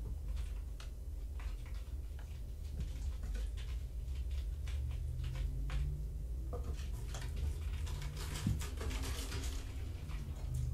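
Kittens playing on the floor: scattered light taps and patter of paws and small objects, with some rustling about seven seconds in. A steady low hum runs underneath.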